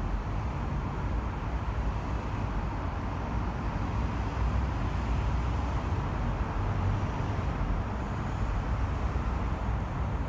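Steady traffic noise from dense car traffic on a multi-lane urban expressway: a continuous low rumble of engines and tyres on the road, with no single vehicle standing out.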